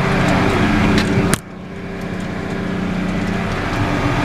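Case IH tractor engine running steadily under load while pulling a beet topper, heard from inside the cab. About a second and a half in there is a sharp click, and the sound turns suddenly quieter and duller before slowly building back.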